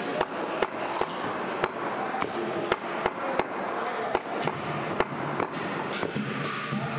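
Meat cleaver chopping goat meat and bone on a wooden log chopping block: sharp, uneven chops, roughly two a second, thinning out near the end.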